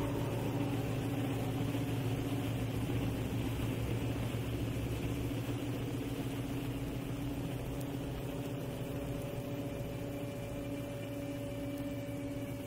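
A steady low drone with a few held tones, slowly fading out.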